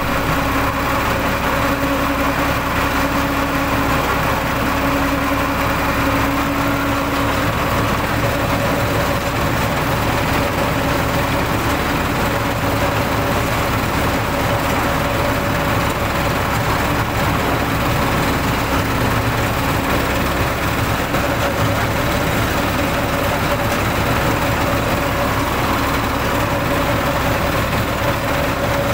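Muddy water gushing at full flow from a 4-inch solar-pumped pipe outlet and splashing into a flooded pool: a steady rushing splash, with a steady hum underneath.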